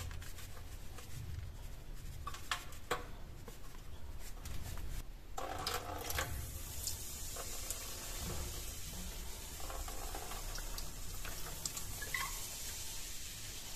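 Baking soda sprinkled onto a rusty steel knife blade in a metal sink, with small ticks of falling grains. About five seconds in, a short pour of vinegar splashes on, and a soft steady fizzing hiss follows as the soda and vinegar foam over the rust.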